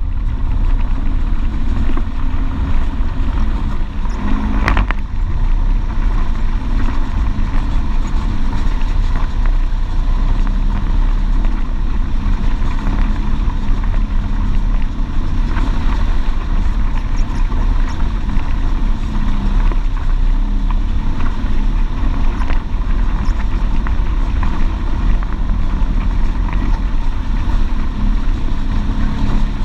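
Polaris RZR XP 1000 side-by-side's parallel-twin engine running steadily while driving over a rough dirt trail, with a continuous deep rumble and a few short knocks.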